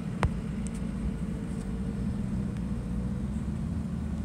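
Steady low rumble of an idling vehicle engine. A single sharp click comes about a quarter second in.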